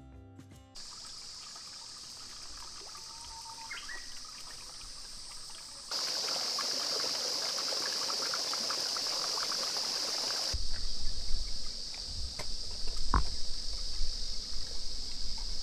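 A small forest stream trickling over mossy rocks under a steady high drone of insects. About two-thirds of the way through, the water gives way to wind rumbling on the microphone, with a sharp knock soon after.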